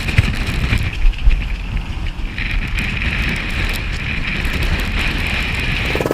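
Storm wind and rain at sea, hissing and buffeting the microphone over a low rumble, with a few heavy thumps in the first second and a half.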